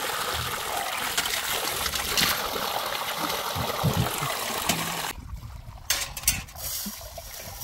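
Water running or pouring steadily, a noisy trickle and splash, which cuts off suddenly about five seconds in, followed by a few light knocks.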